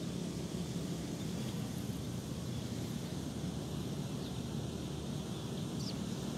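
Steady low outdoor background rumble, with one faint, short high chirp near the end.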